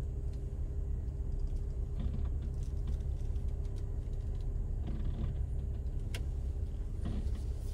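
Car running slowly, heard from inside the cabin: a steady low rumble with a steady hum above it, and a single faint click about six seconds in.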